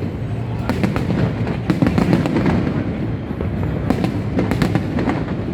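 Aerial fireworks going off in a dense run of bangs and crackles over a continuous low rumble.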